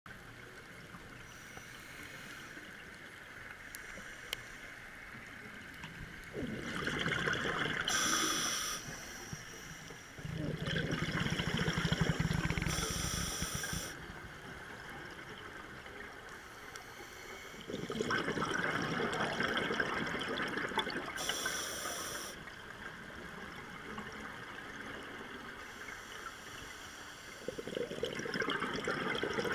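A scuba diver breathing through a regulator, heard underwater: slow cycles of loud inhale hiss and exhaled bubbles rumbling, about four loud stretches, with a faint steady water hiss between them.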